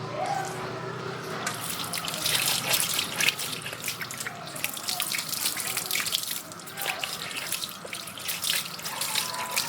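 Water splashing and spattering irregularly while a motorcycle is being washed, getting heavier about a second and a half in.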